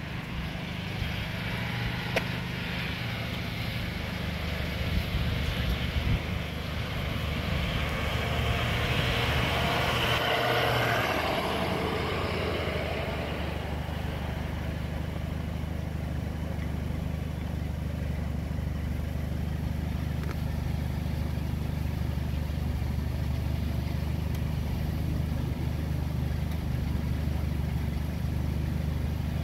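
Steady low hum of an idling car engine, with a passing vehicle swelling up and fading away over about ten seconds in the first half.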